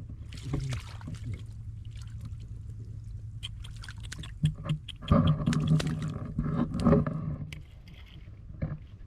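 Water splashing and sloshing in a flooded field, with scattered clicks and knocks. A louder, busier stretch of splashing and knocking comes about five seconds in and lasts some two seconds.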